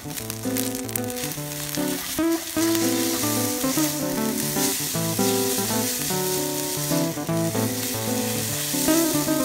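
Yakisoba noodles and pork frying in a camp pot, stirred with chopsticks. The sizzle grows about two seconds in as sauce is poured onto the hot pan, over background music.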